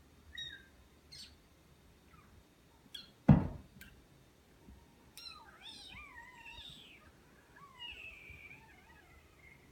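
Short, high, mouse-like squeaks made by a person imitating a mouse, then a run of wavering squeaky calls and one long falling squeak near the end. A single loud thump cuts in about three seconds in.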